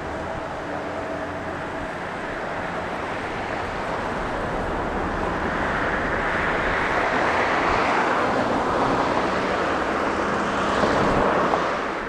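Steady rushing noise of a passing vehicle, swelling gradually over several seconds and loudest in the second half.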